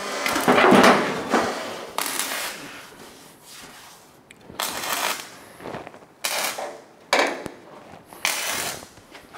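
Metalwork on a car body panel: a series of about six short noisy bursts, the longest and loudest near the start.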